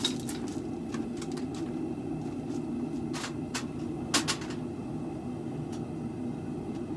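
A steady low hum with scattered light clicks and knocks; a few sharper ones come about three to four and a half seconds in.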